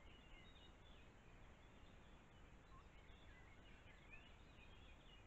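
Faint birdsong of several songbirds, many short overlapping chirps and whistles, over a steady low background rumble.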